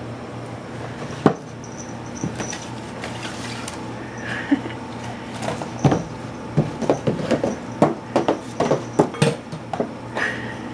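Empty cardboard soda 12-pack box worn over a cat's head, scraping across a tile floor and knocking against wooden cabinet doors. There is one knock about a second in, then a busy run of scuffs and knocks through the second half.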